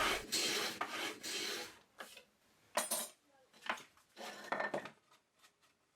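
A hand plane shaving along the edge of a plywood sheet in a stroke lasting under two seconds, then a few light knocks and clinks.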